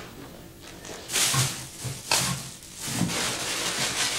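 Plastic bags rustling and crinkling as they are rummaged through, in several irregular bursts starting about a second in.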